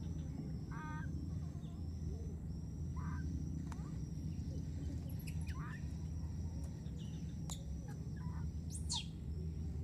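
Short chirping animal calls, one every two or three seconds, over steady outdoor background noise and a constant high hiss.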